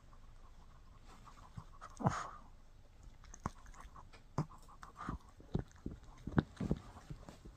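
A Shih Tzu gnawing on a bully stick: scattered short clicks and crunches of teeth on the chew, coming more often in the second half. About two seconds in there is one louder breathy sound.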